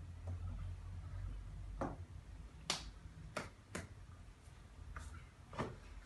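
About six irregular sharp clicks and light slaps of hands meeting and tapping during sign-language signing, the loudest about two and a half seconds in, over a steady low hum.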